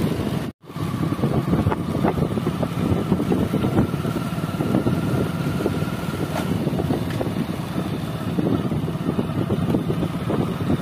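Wind buffeting the microphone over a steady low rumble while moving along a road, with a faint thin whine from about a second in until about six seconds. The sound cuts out completely for a moment about half a second in.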